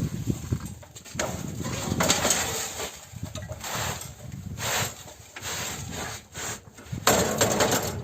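Cinder-block making machine at work, running after an adjustment to its pressing clamp: a steady low rattle with uneven bursts of scraping, the loudest near the end.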